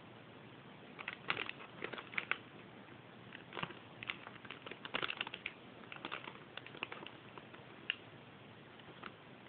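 Spring-roll packaging crinkling and crackling in the hands as it is handled and turned over, in short irregular crackles.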